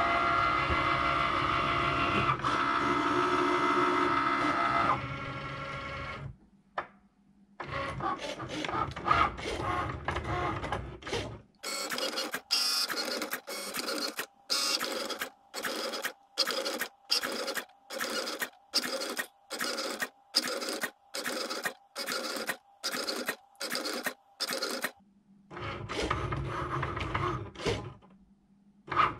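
Cricut Maker cutting machine running a cut on cardstock. A steady motor whir runs for about the first six seconds. Then comes a long run of short, evenly spaced whirring strokes, about one and a half a second, as the carriage and rollers work. A steady whir returns near the end.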